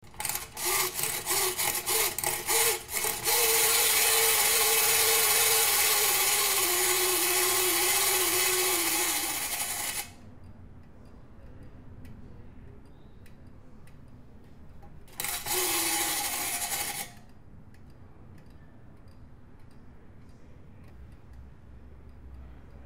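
Clockwork spring mechanism of a tinplate swinging-canoe ride toy: a few seconds of rasping ratchet strokes, then a loud mechanical whir whose pitch sinks slightly as it runs down, stopping abruptly about ten seconds in. After a quieter stretch with faint ticks, the whir comes again briefly for under two seconds.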